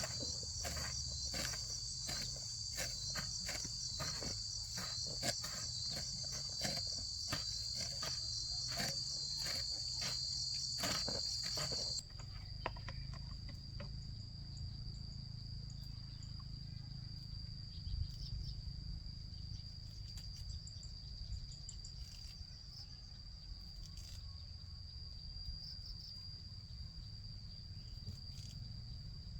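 Insects buzzing in a steady, high-pitched drone. Irregular sharp knocks come a few times a second for the first twelve seconds or so, then stop at an abrupt change in the sound, and the drone carries on.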